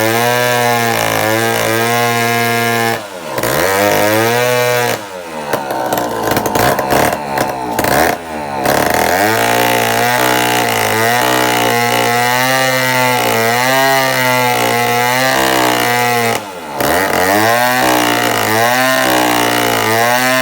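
Two-stroke chainsaw engine running at a steady speed. Its pitch dips briefly and comes back twice, and it turns rough and uneven for a few seconds about five seconds in.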